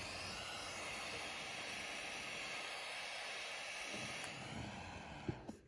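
Handheld butane torch lighter burning with a steady hiss. Near the end comes a click and the hiss cuts off.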